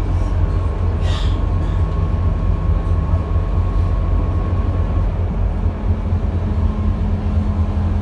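Scania K230UB city bus under way, heard from inside the passenger cabin: the steady low drone of its five-cylinder diesel engine and drivetrain. A thin steady whine stops about five seconds in, and there is a brief hiss about a second in.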